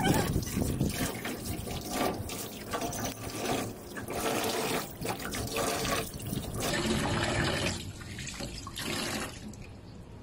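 Tap water running into a stainless steel sink and splashing as hands scoop it over a wet dog being rinsed, in uneven surges; the splashing grows quieter near the end.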